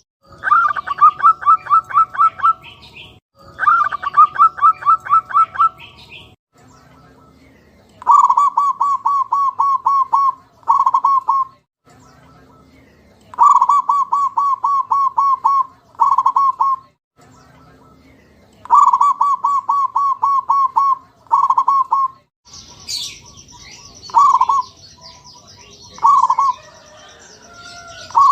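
Zebra doves (perkutut) cooing in repeated phrases of rapid, even notes, each phrase about two seconds long and usually followed by a short tag phrase. Faint high chirps of small birds sound in the background. Near the end the calls break into single spaced notes over a high steady buzz.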